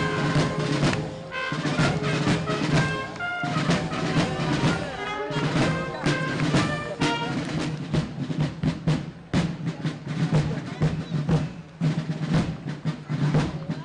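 Brass band and drums playing march-like music: held brass notes over a drum beat, with dense, rapid drumming taking over in the second half.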